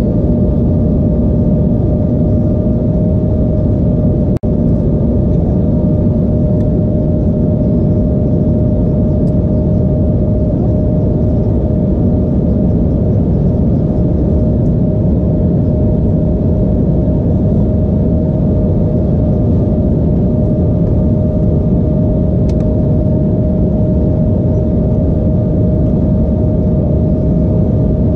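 Steady in-flight cabin noise of an Embraer E175 heard from a window seat: the drone of its GE CF34 turbofans and the rush of air over the fuselage, with a steady hum held throughout. The sound drops out for an instant about four seconds in.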